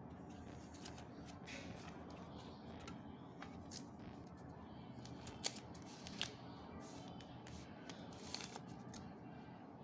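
Packaging of a new phone box being handled and opened: scattered rustling, scraping and small sharp clicks, two of them louder about five and six seconds in.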